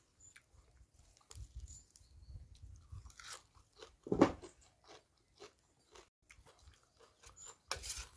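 Close-up chewing and crunching of raw leafy greens and papaya salad, loudest about four seconds in. Near the end a metal spoon scrapes across the metal serving tray.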